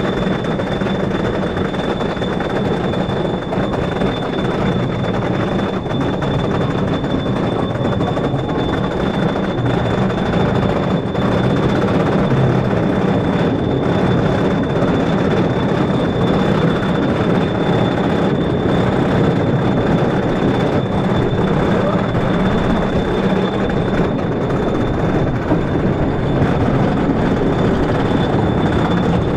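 Wooden roller coaster's chain lift hauling the train up the lift hill: a steady mechanical rattle and rumble with a thin, constant high whine over it.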